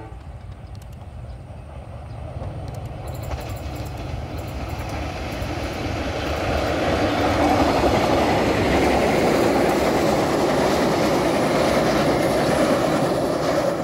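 Passenger train behind a diesel locomotive approaching and passing close by. The engine and wheel noise grows louder over the first several seconds into a steady loud rumble of carriages going by, and cuts off suddenly near the end.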